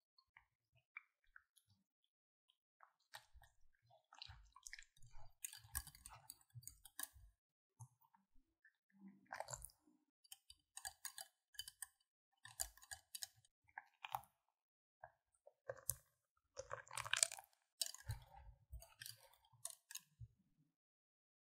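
Faint, irregular clicking and scraping of a utensil working in a mixing bowl, in short clusters with pauses between them.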